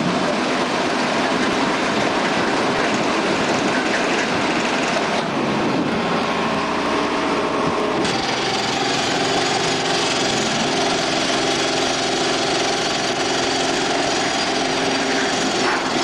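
Potatoes clattering as they pour off a harvester chute onto a pile, over running machinery. About halfway through the sound changes abruptly to an engine running steadily, with a hum of several held tones.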